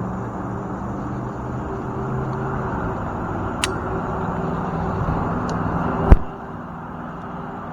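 Chainsaw engine running steadily and building slightly, then a single loud sharp knock about six seconds in, after which it goes quieter.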